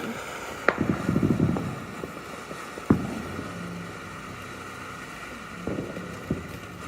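Fireworks going off: a sharp bang about a second in followed by a short rumble of crackle, another bang near three seconds, and a couple of smaller pops near the end.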